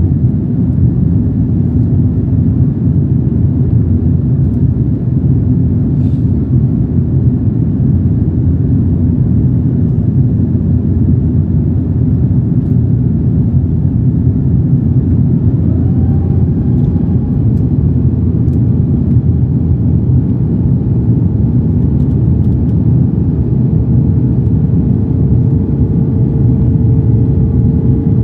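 Loud, steady cabin noise of an Airbus A330-300 with Rolls-Royce Trent 700 engines in descent, a deep rumble of engines and airflow heard from a window seat. About halfway through, a faint steady whine comes in and holds.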